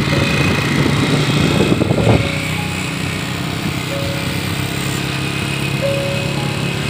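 Motorcycle engine running steadily while riding, with wind buffeting the microphone for the first two seconds.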